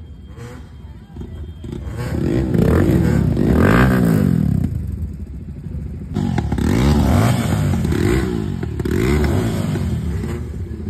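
Motorcycle engines being revved again and again, the pitch sweeping up and falling back with each blip of the throttle, in two runs of several revs with a short lull between them.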